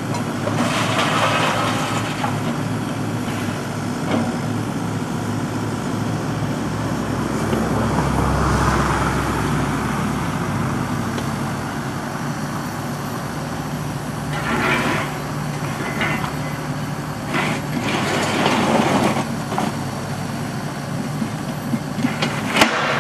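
Wheeled excavator's diesel engine running steadily while its grab bucket handles locomotive coal, with several bursts of coal rattling and scraping as the grab dumps and digs. A few sharp knocks come near the end.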